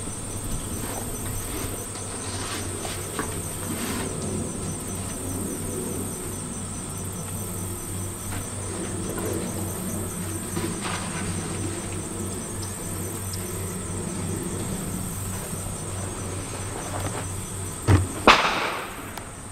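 Steady high-pitched insect chirring with faint rustling under it. About 18 seconds in come two sharp knocks and a short loud rush of handling noise as the camera is picked up and moved.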